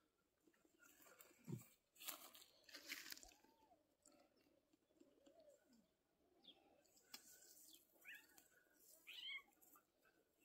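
Near silence, with faint rustling and a few faint chirps near the end.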